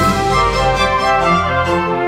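Instrumental background music of held notes changing in a melody.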